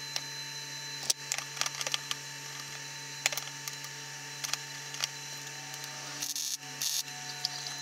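Steel plate being handled and set in place on a frame, with scattered light clicks and metal taps over a steady hum. Near the end come two brief crackling hisses as the MIG welder tacks the plate.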